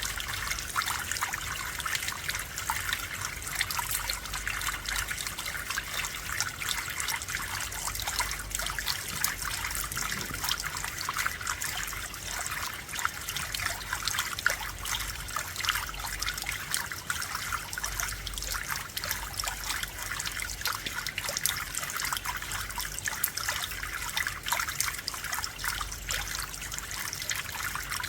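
Rain falling steadily, a dense patter of many small drop impacts, with no single louder event standing out.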